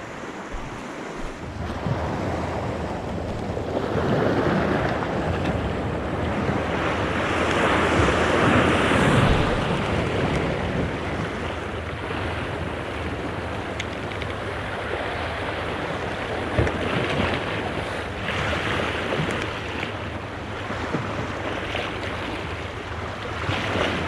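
Sea waves washing and breaking against a rocky shore, surging louder about four seconds in and again around eight to nine seconds, with wind rumbling on the microphone.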